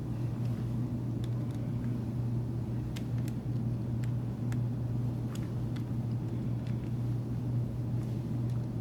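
A steady low hum in the background, with faint scattered small clicks from a screwdriver driving the screws back into the clipper's hinge and blade drive.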